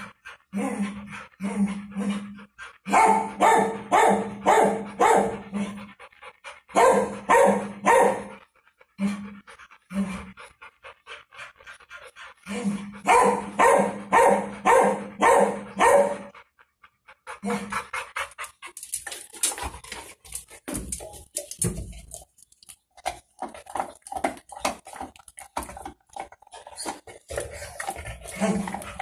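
A large dog panting hard: runs of quick, loud breaths about three a second, each run lasting a few seconds with short pauses between. After about 17 seconds it gives way to quieter, irregular clicking and snuffling noises.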